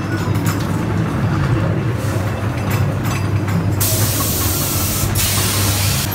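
Ghost train ride car rumbling along its track, with scattered clicks. About four seconds in, a loud hiss of air blasts for about two seconds, dipping briefly midway.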